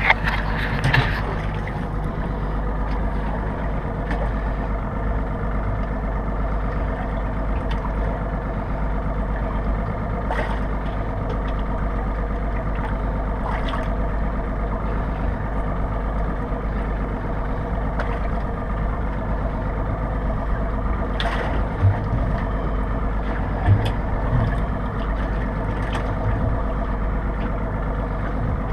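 Boat engine idling steadily, with a few light knocks now and then.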